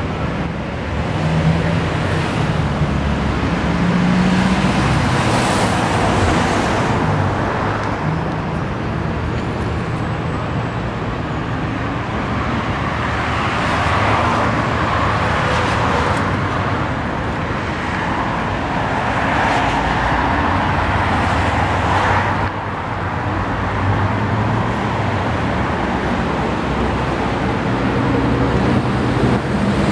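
Road traffic going by: a steady rush of cars with engine hum, swelling and fading several times as vehicles pass close.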